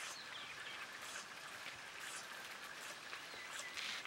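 Outdoor rural ambience: a few faint short chirps over a steady high hum and hiss, with a brief rustling noise near the end.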